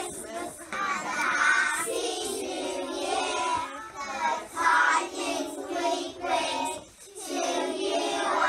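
A group of young children singing a Christmas song together, in held, sung notes.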